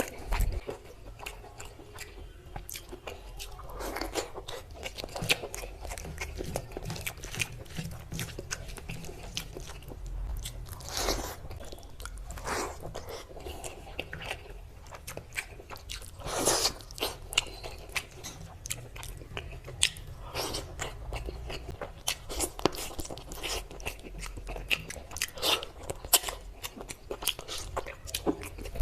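Close-miked eating: big crunchy bites and chewing, with many sharp crackles and several louder crunches.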